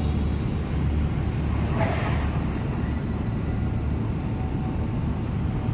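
Steady low rumble of a running engine, with a brief rushing hiss about two seconds in.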